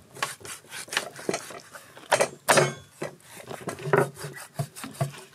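Cleaver cutting through a boiled beef tail and knocking on a wooden chopping block: a series of uneven knocks and slicing scrapes, the loudest two close together a little past two seconds in.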